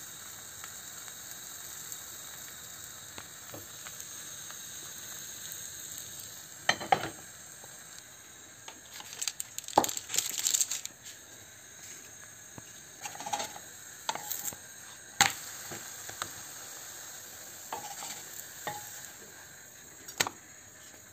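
Thin pancake batter sizzling in a hot oiled frying pan, a steady hiss. About a third of the way in come sharp knocks and clatter, then a burst of crinkling plastic film as butter is scooped with a wooden spatula, with a few more knocks later while the sizzle carries on more faintly.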